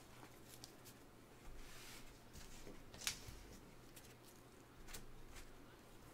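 Faint clicks and rustles of hands handling trading cards and packaging on a desk, with one sharper click about three seconds in, over a low steady hum.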